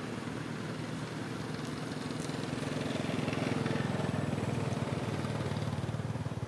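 Engine of a passing motor vehicle: a steady low drone that grows louder in the middle and eases off near the end.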